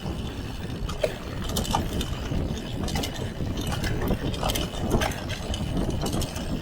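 Mountain bike being ridden over a rough trail: a steady low rumble of tyres and air over the microphone, with sharp clicks and rattles from the bike at uneven intervals.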